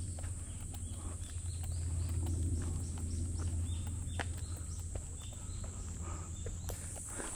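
Footsteps of a hiker walking on a dry dirt forest trail, an irregular run of short steps. A steady high-pitched drone runs beneath them and grows louder near the end.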